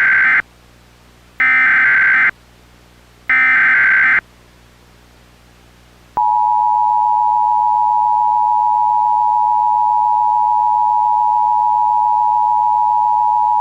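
Emergency Alert System tones: the SAME header's digital data bursts, three in all with the first already under way, each about a second long. About six seconds in, the steady two-tone EAS attention signal starts and holds.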